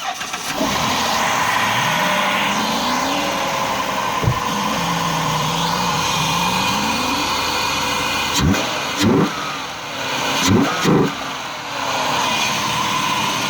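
2006 Dodge Grand Caravan's 3.8-litre V6 running with an open K&N cone-filter short ram intake, revved up and down slowly, then blipped about four times in quick succession, with the induction noise exposed under the open hood.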